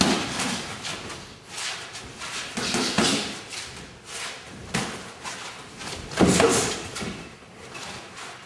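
Gloved punches landing during boxing sparring: irregular thuds and slaps a second or so apart, the loudest about six seconds in.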